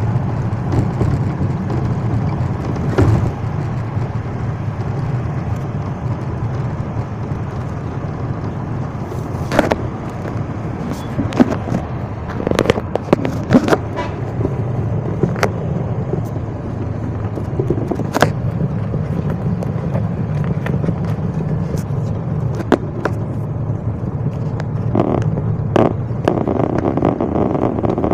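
Steady low rumble of road and engine noise inside a moving vehicle, with scattered sharp clicks and rattles.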